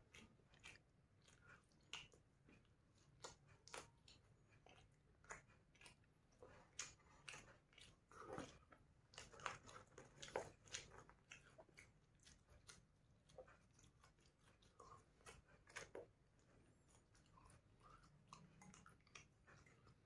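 A person eating close to the microphone: biting and chewing chicken wing, with faint, irregular crunchy clicks that are loudest around the middle.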